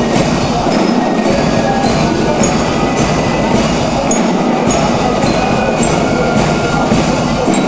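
Loud marching music with a steady beat of about two a second and short high notes over it, played for the carnival entrance march.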